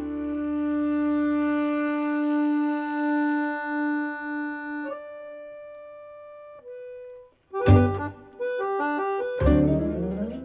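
Recorded music played back over a Gryphon Commander preamplifier and Gryphon Apex power amplifier through floor-standing speakers. Long held notes fade away over the first several seconds, then after a moment of silence a loud, sharp chord strikes and quick runs of notes follow, with a second strong chord about two seconds later.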